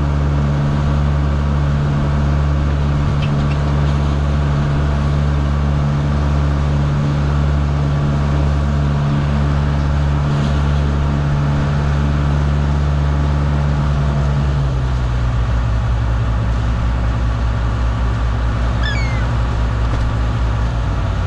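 A fishing boat's diesel engine running steadily. About two-thirds of the way through, its note drops a little and its low pulse turns uneven, as if it is throttled back. A few short, high, falling calls come near the end.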